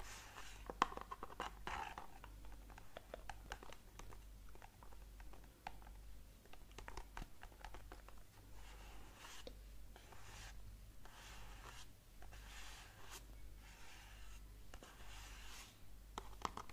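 Close-miked ASMR trigger sounds: a steady run of small sharp clicks and taps, with soft, hissing, scratchy patches about once a second in the second half.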